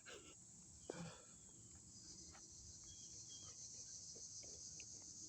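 Faint steady chorus of crickets, a high trilling that grows a little louder after about two seconds, with one soft click about a second in.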